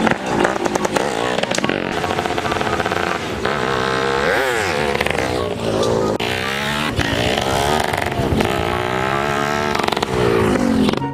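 Motorcycle engine running, its pitch rising and falling over and over as it revs up and eases off.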